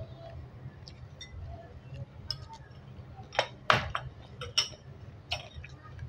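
Glass bowls and dishes clinking at the table: several sharp clinks between about three and five and a half seconds in, the loudest just under four seconds in, with small clicks and ticks between.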